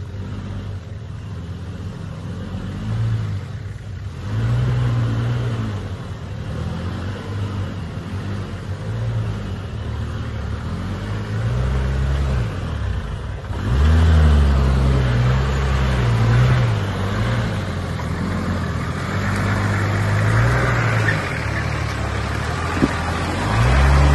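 Nissan Patrol's TD42 straight-six diesel engine revving up and down in repeated bursts as the four-wheel drive crawls over rock ledges. It gets louder a little over halfway through.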